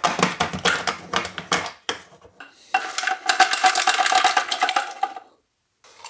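Freshly made ice cubes being popped out of a portable fridge's ice-maker tray and clattering into a glass jar: a quick run of clinks and knocks, then a longer steady rattle lasting two or three seconds.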